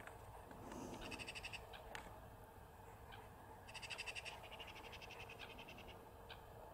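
Faint outdoor ambience with two short bursts of rapid, high-pitched trilling calls at about ten pulses a second: a brief one about a second in and a longer one around the four-second mark that fades out. A few scattered single chirps fall between them.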